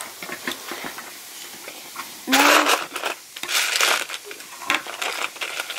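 Plastic Lego pieces clattering and rattling as a hand rummages through the set's storage tray, with scattered small clicks of pieces being handled and two louder spells of clatter in the middle.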